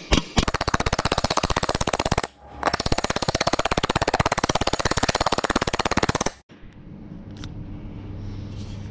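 Power hammer running at a rapid, even rate on the sheet-metal tail section, planishing along the welded fin seam. It runs in two bursts with a short break about two seconds in, and stops about six seconds in, leaving only a faint low hum.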